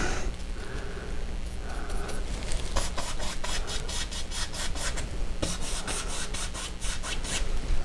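Stiff bristle brush scrubbing and blending wet oil paint across a canvas in many quick back-and-forth strokes, each stroke a dry, scratchy rub.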